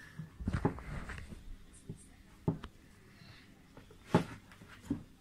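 Handling noise as a telescope eyepiece is worked out of its foam-lined cardboard box: rustling and scraping, with several short knocks and clicks. The loudest knock comes about four seconds in.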